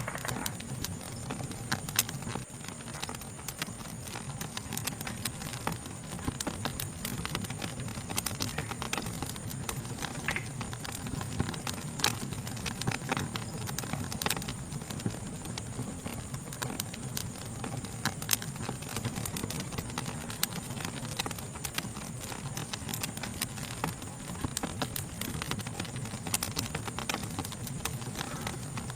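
Wood fire crackling, with irregular sharp pops and snaps over a low, soft rumble. A steady high-pitched insect chorus trills underneath.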